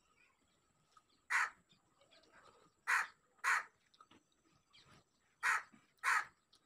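A crow cawing five times: one caw, then two quick pairs of harsh caws.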